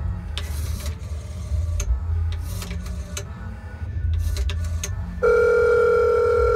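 Rotary dial of an old payphone clicking and whirring as a number is dialed, then, about five seconds in, a loud steady telephone ringback tone: the call is ringing through.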